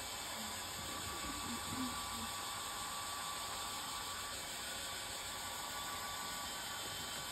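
Hair dryer blowing steadily on a gentle setting, drying a wet watercolour wash on the paper.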